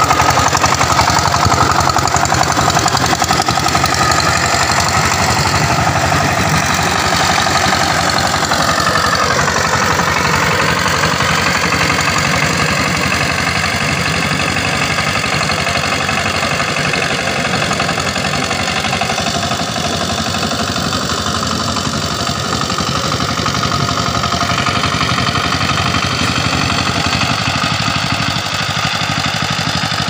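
Two-wheel power tiller's single-cylinder diesel engine running steadily with a rapid firing beat as it ploughs through wet paddy mud. Its note dips briefly and comes back up about ten seconds in.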